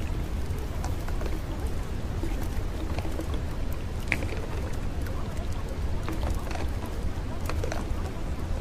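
Steady hissing noise with a deep low rumble underneath and many small scattered clicks and ticks, like rain, with one sharper tick about four seconds in. It is the audible layer of a subliminal track, under which spoken affirmations are mixed.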